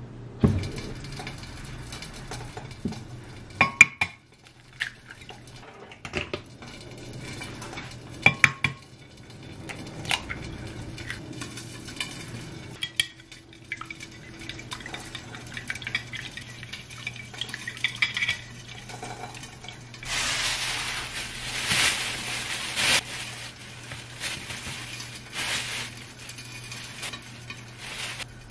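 Kitchen prep sounds: a ceramic plate and utensils clinking a few times, then wooden chopsticks beating eggs against a ceramic dish. About two-thirds through comes a few seconds of loud plastic-bag rustling, the loudest part.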